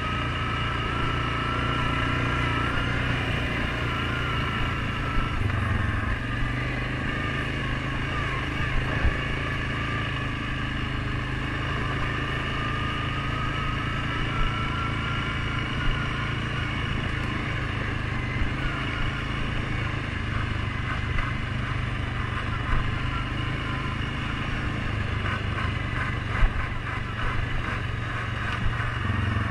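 Suzuki KingQuad 750 ATV's single-cylinder engine running at a steady trail-riding pace, its pitch drifting gently up and down, with a few short sharp knocks along the way.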